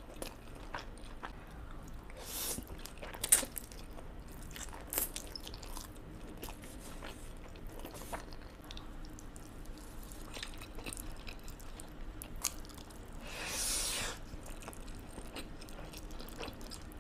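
Close-miked eating of carbonara instant noodles: wet chewing with scattered mouth clicks, a sharp click about three seconds in, and a longer slurp of noodles a little after halfway.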